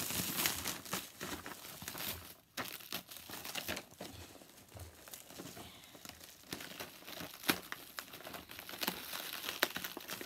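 Plastic wrap being pulled off a box and crumpled by hand, an irregular run of crinkling crackles.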